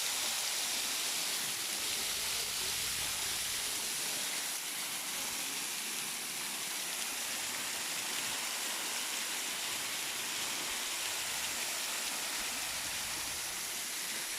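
Waterfall: falling water making a steady, even rush, mostly hiss with little bass.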